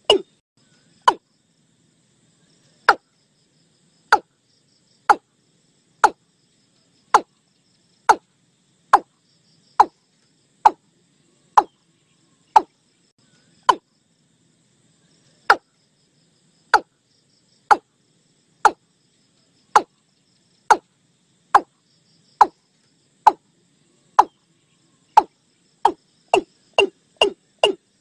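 Recorded watercock calls: a series of short, sharp notes, about one a second, speeding up near the end into a quick run of about three a second.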